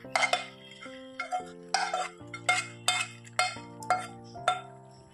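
A steel spoon clinking and scraping against metal pans as vegetables are scraped from one pan into another, a run of sharp clinks about every half second, over soft background music of held notes.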